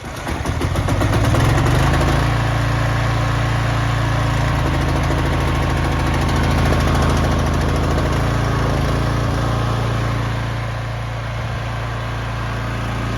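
Petrol engine of an Alpha A4 pressure washer starting up and running up to speed about a second in, then running steadily, its note shifting slightly a couple of times.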